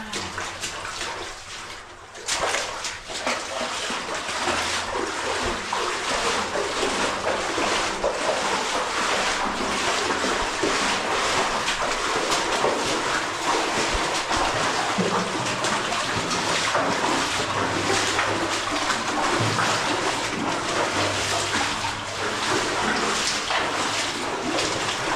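Water rushing and splashing in a cave, a steady spattering hiss that jumps in loudness about two seconds in and then holds steady.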